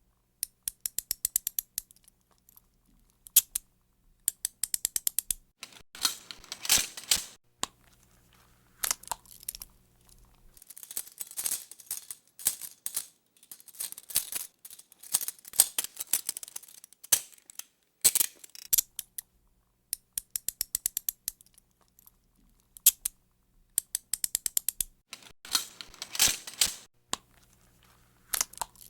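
Metal handcuffs being opened and snapped shut over and over: quick runs of ratchet clicks as the cuff arm swings through the lock, with longer jangling metal rattles in between.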